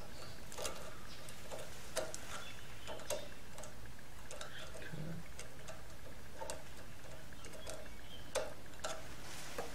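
Flathead screwdriver working in the slot of a carburetor main jet on a Predator 212 engine, making faint, irregular ticks and small scrapes as the blade catches and slips while trying to unscrew the jet.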